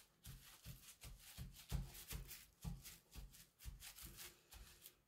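Wad of paper towel dabbed again and again onto a wet printed sheet lying on a plastic shopping bag, blotting off excess water and marker ink: a faint run of soft pats with light crinkling, about three a second.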